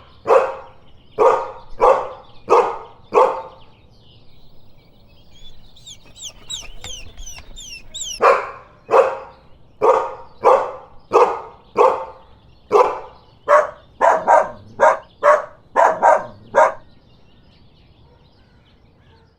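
A dog barking: five barks, a pause with a quick run of high chirps, then a longer run of about fifteen barks that come faster toward the end.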